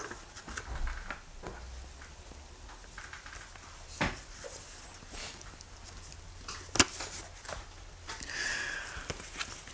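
A man crying quietly: scattered sniffles and breaths with faint rustles as he handles a paper card, and one sharp click about two-thirds of the way in.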